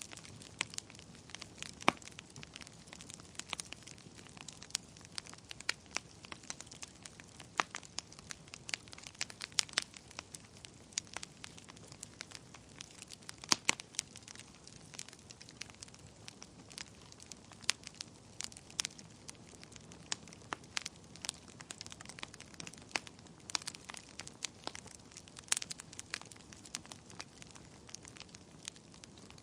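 Wood fire burning in a fireplace, crackling and popping irregularly: many sharp snaps of varying loudness over a faint steady hiss.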